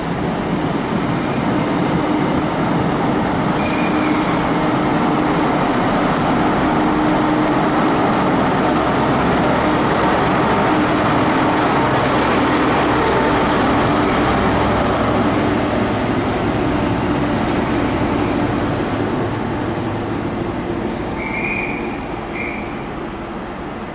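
A Class 43 diesel power car of an InterCity 125 High Speed Train runs under power as the train pulls along the platform, a steady loud engine noise with a droning tone. It fades as the train draws away, with two brief high squeaks near the end.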